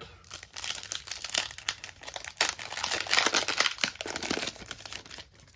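Foil wrapper of a Panini NBA Hoops trading-card pack crinkling and crackling as it is handled and torn open, loudest about halfway through.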